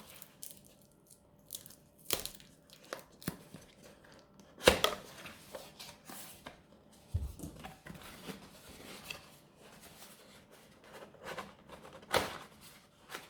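Packaging of a boxed Bluetooth speaker being opened and handled: tearing and crinkling of wrapping with scattered clicks and knocks, the sharpest about five seconds in and again near the end.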